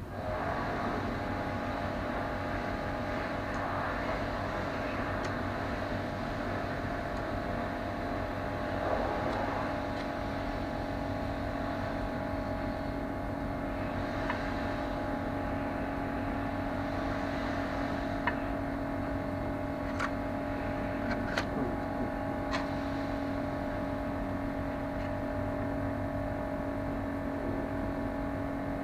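Steady drone of running machinery, an engine or motor, with two steady tones over a low hum. A few light clicks come about two-thirds of the way in.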